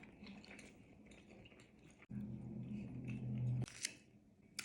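Faint chewing and wet mouth clicks, then about two seconds in a low, drawn-out burp lasting about a second and a half that cuts off abruptly.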